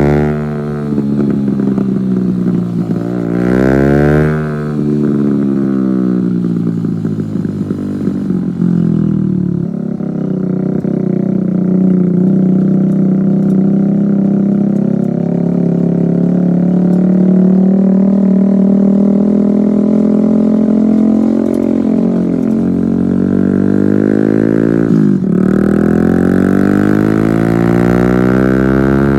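Kawasaki Z125 Pro's single-cylinder four-stroke engine through a straight-pipe exhaust, loud throughout. Its pitch rises and falls as it is revved, with a steadier stretch of running in the middle, a sharp dip and recovery past the middle, and a climb to high revs near the end.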